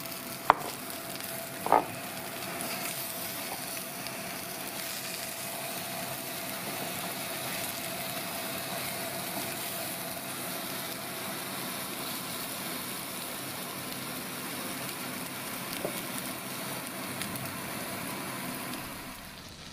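Whole button mushrooms frying in melted butter in a frying pan, a steady sizzling hiss. A couple of short knocks come near the start and another late on.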